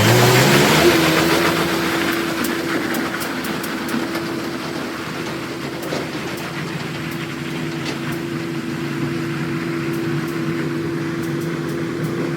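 An engine or motor spins up, rising in pitch over about the first second, then runs at a steady pitch, with a few faint clicks.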